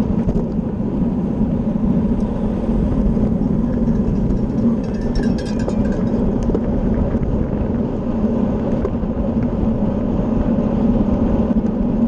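Steady wind rushing over the microphone of a bicycle's camera at racing speed, mixed with the hum of tyres on the road, with a few faint ticks about five seconds in.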